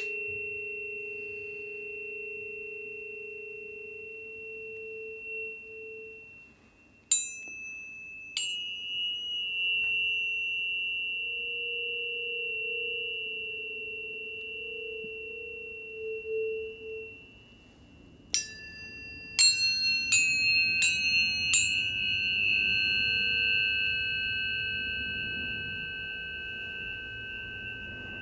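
Planetary tuning forks ringing with steady, overlapping pure tones, one high and one low, that fade slowly. They are struck twice about seven seconds in and then five times in quick succession towards the end, each strike a sharp tap followed by a fresh ringing tone.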